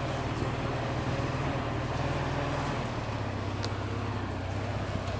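Flat-fender Willys Jeep's four-cylinder engine running steadily at low speed as the Jeep drives slowly over grass, its pitch dropping a little about three seconds in.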